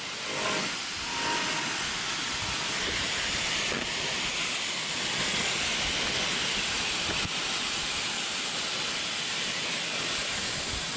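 JBL wireless speaker giving out a steady static hiss in place of the music it plays before and after.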